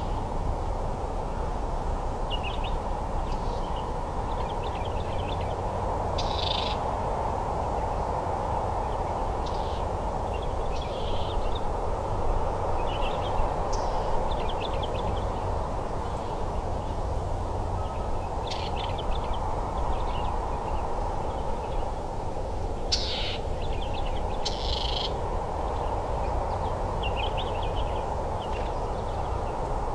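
Birds chirping in short calls and trills, scattered every second or two, over a steady rushing background noise.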